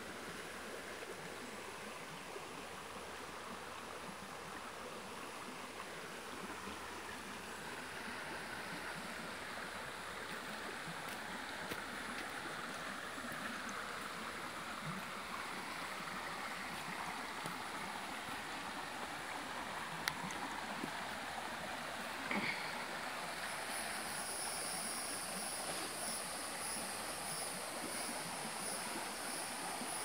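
Shallow spring-fed stream running over rocks toward a small waterfall, a steady rush of water that grows gradually louder. A single sharp click sounds about two-thirds of the way through.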